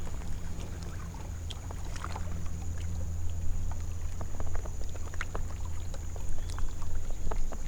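Sounds aboard a fishing kayak: a steady low hum with a thin high steady tone, and scattered light clicks and taps throughout.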